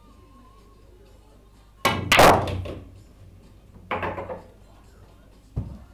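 Pool shot: a sharp click of the cue striking the cue ball about two seconds in, followed at once by a louder clatter of balls knocking together and into a pocket. A smaller clatter follows about four seconds in, and a short sharp knock comes near the end.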